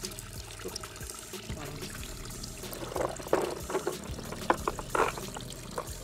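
Shallow water trickling over rocks in a stream, with a run of short, louder splashes about three to five seconds in.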